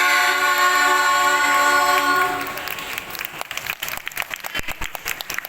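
A choir holds the final chord of the song, which ends a little over two seconds in; audience applause follows, the clapping building from about three seconds in.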